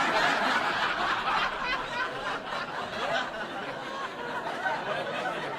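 A crowd of people laughing and chattering together, like an audience laugh track, starting abruptly and easing off slightly toward the end.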